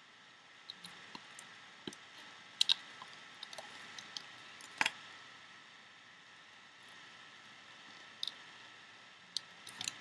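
Scattered small clicks and taps of a metal loom hook against the plastic pegs of a Rainbow Loom as rubber bands are hooked and pulled over, over a faint steady hiss. The loudest clicks are a close pair about two and a half seconds in and another near the five-second mark.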